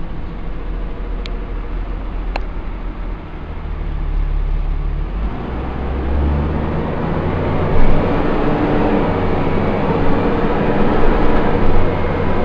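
Dennis Dart SLF bus's diesel engine and engine cooling fan running, heard from inside the passenger saloon as a steady low drone. The drone grows louder and fuller about five seconds in. Two faint ticks come in the first three seconds.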